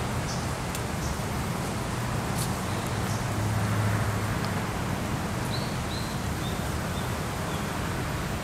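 Steady low rumble of distant traffic that swells briefly about three to four seconds in. A small bird gives a short series of four high chirps, each a little lower than the last, around six seconds in.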